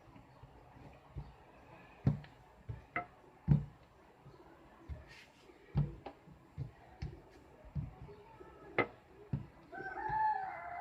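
A rolling pin rolling out pastry dough on a tiled worktop, with irregular dull knocks as it is pushed and bumps over the tile joints. A cat meows briefly near the end.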